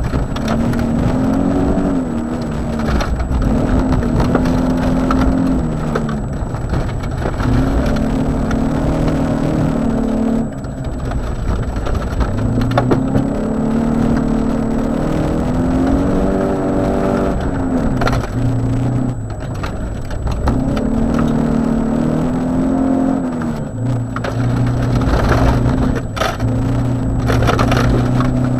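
Rally car engine heard from inside the cabin, revving up and dropping back over and over through gear changes under hard acceleration on a gravel stage. Gravel pings and rattles against the car's underside throughout.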